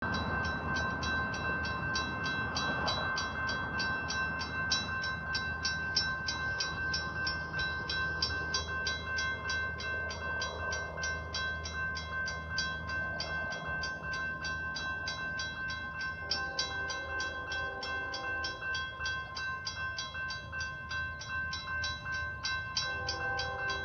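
Railroad crossing bell ringing steadily in a rapid, even run of dings, over a low rumble. About two-thirds of the way in, a distant train horn sounds several blasts.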